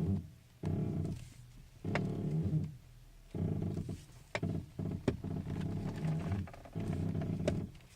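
A car part creaking: a low, rasping creak repeated about six times, each under a second long, with a few sharp clicks among them.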